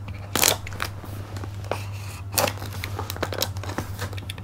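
A knife blade slitting packing tape and cardboard on a cardboard box, in short irregular scraping and tearing strokes with crinkling of the tape, over a steady low hum.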